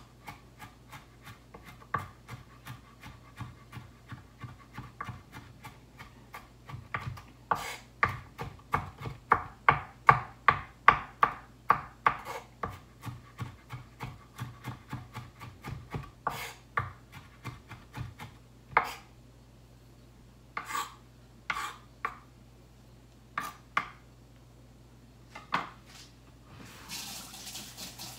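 Knife chopping rapidly on a wooden cutting board, about three strokes a second, loudest in the middle, then thinning to a few single chops. Near the end a kitchen tap starts running.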